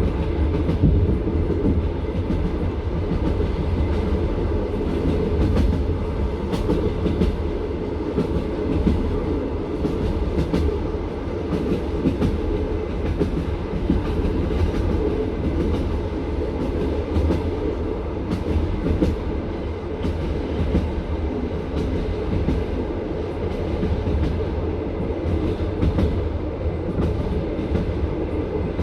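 Passenger railway carriage running at speed: a steady rumble of wheels on rails with the clickety-clack of wheels knocking over rail joints, in uneven clicks.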